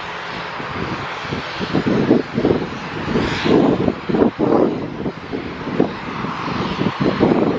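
Pilatus PC-24's Williams FJ44 turbofan engine running during engine start, a steady jet hiss. Uneven low gusts of wind buffet the microphone throughout.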